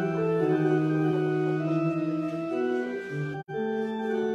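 Organ playing slow, held chords that move from one chord to the next. The sound drops out for an instant about three and a half seconds in.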